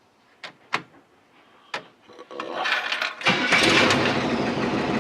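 Three sharp clicks, then the 1985 Chevy P30 step van's engine cranks and catches about three seconds in, running steadily at idle.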